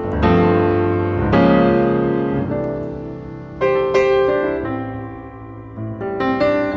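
Background piano music: chords struck every second or two, each ringing on and fading away.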